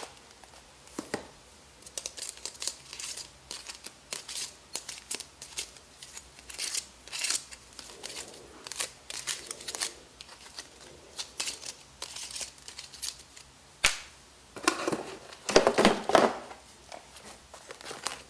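Hands handling a new sneaker and pulling out its black perforated plastic shoe shaper: irregular crinkling and rustling, with a sharp click about 14 seconds in and a louder spell of rustling a little later.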